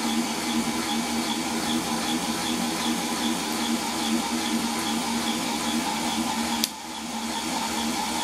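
Small electric motors and gearing of a fischertechnik robot arm running, a steady whirring hum with a faint regular tick, as the wrist pivot motor drives at a raised speed setting of 5. About six and a half seconds in there is a click and the hum briefly drops, then picks up again.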